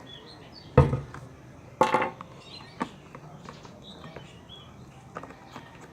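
Two loud knocks, about a second apart, of objects being handled and set down on a table, followed by a lighter click and a few faint taps.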